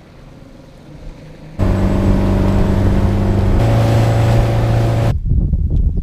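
Boat motor running steadily at speed, a loud drone that starts abruptly about a second and a half in. It shifts pitch about two seconds later and cuts off abruptly near the end.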